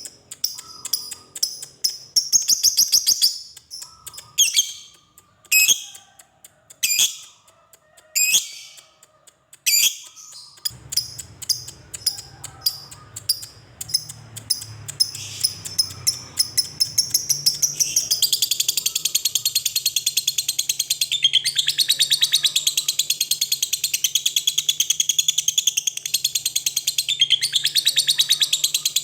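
Lovebird calling: sharp, separate high chirps at first, then quickening repeated notes that run together about two-thirds of the way in into a long, fast, continuous chattering trill, the drawn-out 'ngekek' song of a lovebird.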